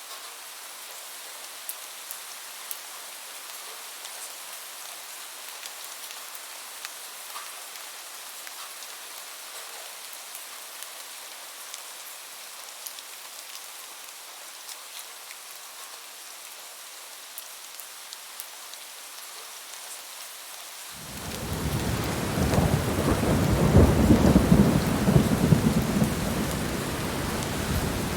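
Steady rain falling, with scattered drip ticks. About 21 seconds in, a deep thunder rumble sets in suddenly, loudest a few seconds later and still rolling at the end.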